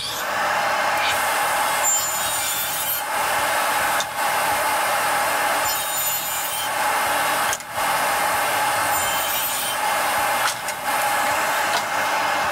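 Radial arm saw running and cutting through a scrap wood board with a steady, loud whine, dipping briefly a few times.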